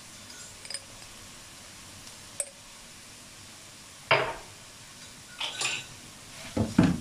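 Wooden spatula scraping and knocking against a nonstick wok as it stirs strips of frying beef. A few sharp clicks come in the first two and a half seconds, then louder scrapes about four seconds in and several more near the end, over a faint steady sizzle.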